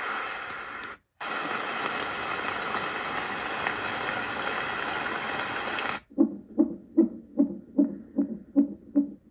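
A white noise machine's speaker plays a steady hissing noise, cuts out briefly about a second in and comes back with a similar noise. About six seconds in it switches to a low pulsing tone at roughly two and a half pulses a second, the machine cycling through its built-in sounds.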